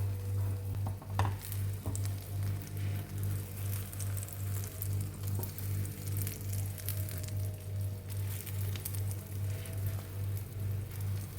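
Food frying in hot oil in a pan, sizzling with scattered pops and crackles, over a low hum that pulses about two or three times a second.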